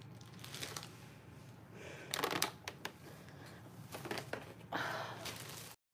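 Plastic bag crinkling and packaging rustling as bagged pita bread and food containers are handled and moved, in irregular bursts. The sound cuts out abruptly just before the end.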